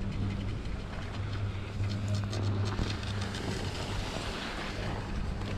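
Skis sliding and scraping over packed, groomed snow, with wind rushing on the microphone as the camera skis along, the scraping thickest from about two seconds in to near the end. A steady low hum runs underneath.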